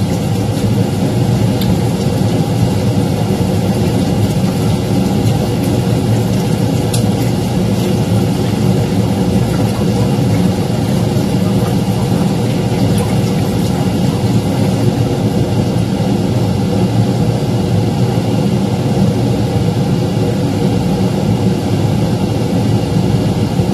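A steady motor hum, loud and unchanging, with a few faint clicks.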